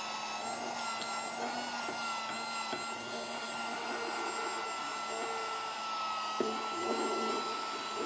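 Miniature handheld vacuum cleaner's small electric motor running with a steady high whine while sucking up crumbs, with a few faint ticks. A click comes about six seconds in, after which the sound turns rougher.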